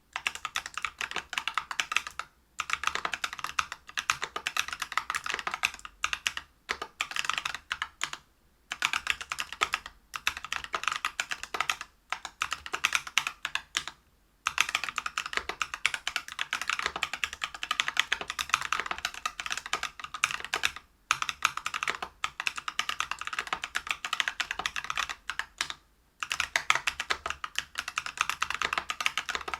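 Fast, continuous typing on a Whale 75 mechanical keyboard with lubed Neapolitan Ice Cream tactile switches (63.5 g), a brass plate and PBT keycaps: rapid keystrokes with brief pauses every few seconds.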